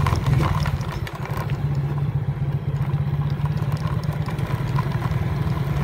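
Small motorbike engine running steadily as the bike rides along a rough path.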